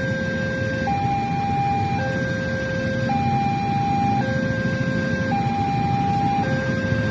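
Railway level-crossing warning alarm sounding as a two-tone electronic signal, a lower and a higher tone taking turns about once a second, over a steady low rumble of traffic.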